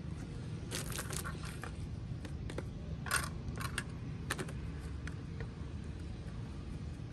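Scattered crinkles, taps and clicks of plastic snack packets, cups and containers being handled, over a steady low rumble.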